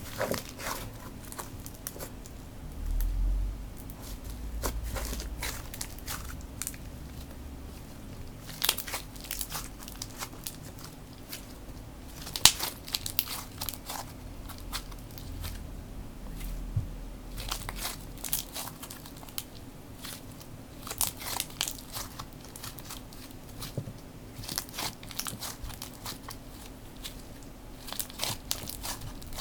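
Slime being squished and poked by hand, giving irregular clusters of small crackling clicks and pops, with a few dull handling bumps.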